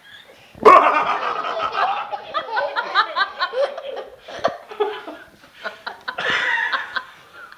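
Toddler laughing: a sudden loud burst about half a second in, then repeated bursts of giggles that come and go.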